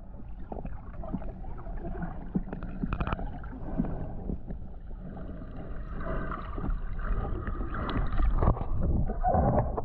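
Underwater sound heard through a camera's waterproof housing: a low muffled rumble and water movement, with scattered clicks and knocks. A faint steady whine comes in about six seconds in.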